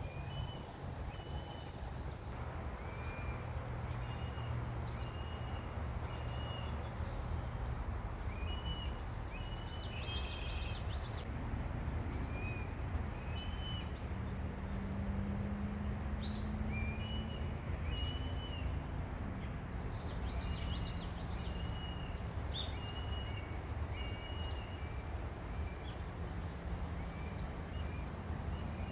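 Unidentified marsh animal calling over and over with short, high, whistle-like notes that sound like a broken whistle, irregularly spaced, over a steady low background rumble.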